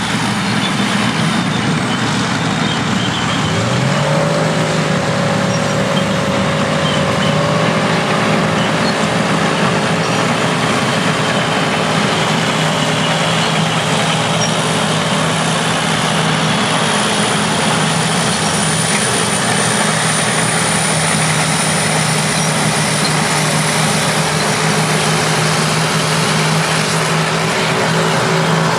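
Vintage bulldozer and scraper diesel engines working together, a steady heavy machinery din. About three to four seconds in, one engine's pitch rises and then holds steady.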